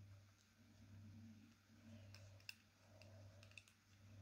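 Near silence with a few faint clicks of clarinet parts being handled as the mouthpiece is got ready, over a low steady hum.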